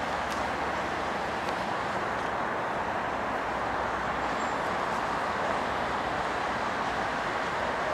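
Steady, even hum of distant road traffic, with no single vehicle standing out.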